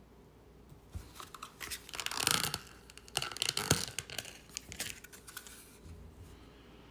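Packaging of a Scentsy wax melt bar being handled and opened: a string of sharp clicks and crinkles, with a short tearing rasp about two seconds in.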